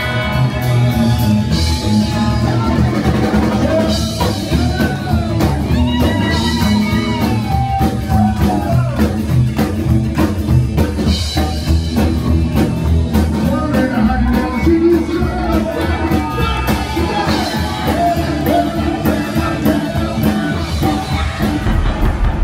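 A live rock and roll band playing on stage: upright double bass, drum kit and hollow-body electric guitar with a steady beat, and a singing voice over them.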